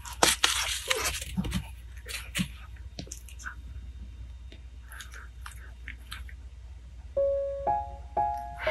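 A kitten scuffling with a felt ball on a foam play mat: a burst of rustling and scratching in the first second or so, then a few faint taps. About seven seconds in, background music starts, a simple keyboard melody played one note at a time.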